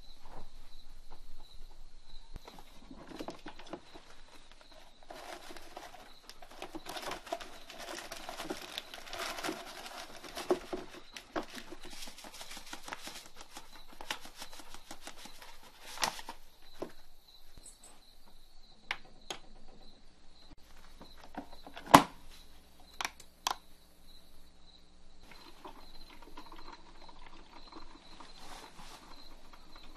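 Hands preparing a drip coffee maker: a paper bag of ground coffee crinkles as grounds are poured into the filter basket. This is followed by several sharp clicks, the loudest about 22 seconds in. A faint, low, steady hum sets in about 20 seconds in.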